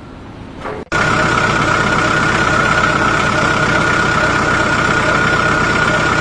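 A loud machine engine running steadily, with a constant high whine over a rapid low chugging, starting suddenly about a second in.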